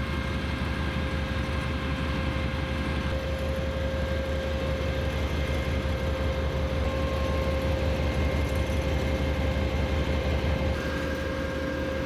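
TEP70BS diesel passenger locomotive's V16 diesel engine idling at a standstill: a steady deep throb with a constant humming tone above it. The throb eases near the end.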